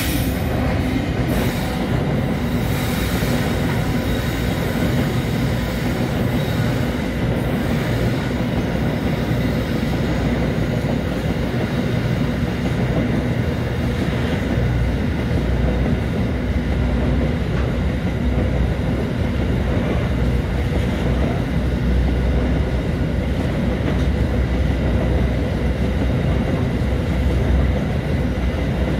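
Freight wagons rolling past on steel rails: a loud, steady rumble with thin high wheel squeal and some clickety-clack of wheels over the rail joints.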